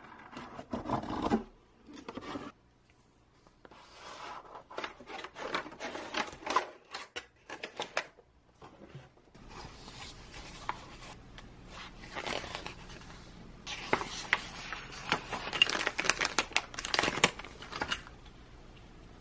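Hands handling a cardboard kit box and its contents: cardboard sliding and scraping, paper and plastic parts bags rustling, in irregular clusters with short pauses.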